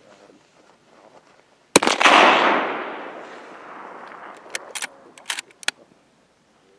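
A single rifle shot from a prone shooter's scoped, bipod-mounted long-range rifle: one sharp crack about two seconds in, followed by a long echo that fades over about three seconds. A few short, sharp clicks follow near the end.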